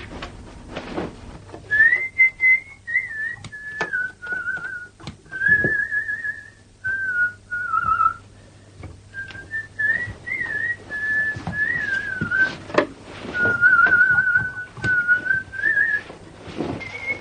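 A person whistling a tune in short phrases, starting about two seconds in, with scattered sharp clicks and knocks from work at a table.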